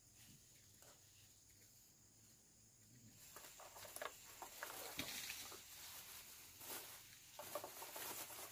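Faint rustling and crackling with scattered light clicks, starting about three seconds in.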